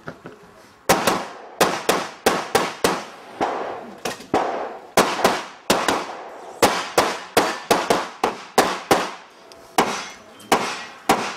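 Rapid pistol fire from a Glock 17 in 9 mm: a long string of about two dozen sharp shots, two or three a second, each with a short echo. The string starts about a second in, with brief pauses between groups of shots as the shooter moves between targets.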